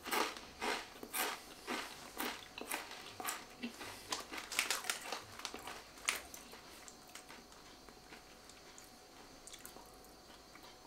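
A mouthful of crisp potato chips (Crunchips Fiesta Aioli Style) being chewed: a quick run of crunches, about two a second, that thins out and stops about six seconds in. The crunch is strong, which shows the chips are very crisp.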